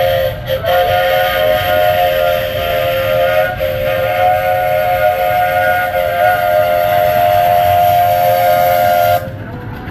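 The Cagney steam locomotive's chime whistle blowing a long, steady chord of several notes. It breaks off briefly twice in the first few seconds, then cuts off shortly before the end.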